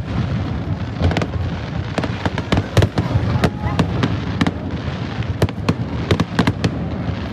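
Aerial fireworks display going off in rapid succession: many sharp bangs and crackles, several a second, over a continuous low rumble of bursts.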